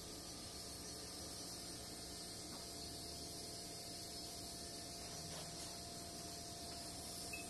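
Steady hiss with a faint low hum underneath, even throughout, with no distinct knocks or clicks standing out.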